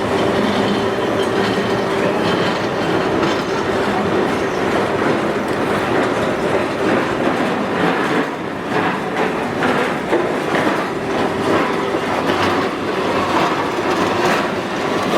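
Continuous carbonization plant machinery running, with the charcoal discharge conveyors rattling and clattering over a steady mechanical hum.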